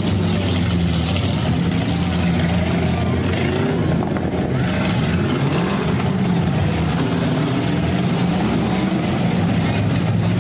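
Several demolition derby cars' engines running and revving together, their pitch rising and falling as they accelerate and back off.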